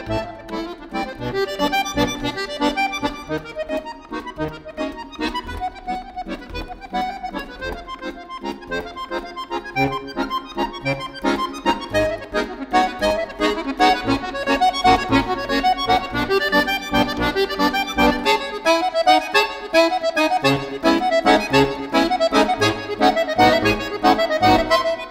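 Pigini chromatic button accordion played solo: quick, rhythmic runs of short notes over separate low bass notes, getting louder about halfway through.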